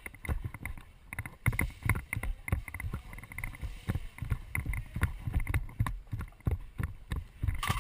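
Irregular thumps and rustling close to the microphone, several a second and uneven in strength, from a player's movement and gear handling.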